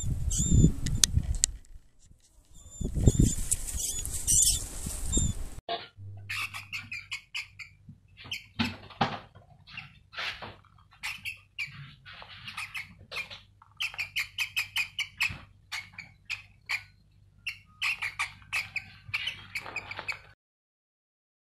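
Loud rustling in dry grass for the first few seconds, with a few faint high squeaks. Then a mouse squeaking in quick runs of short, high chirps over a low steady hum, stopping abruptly near the end.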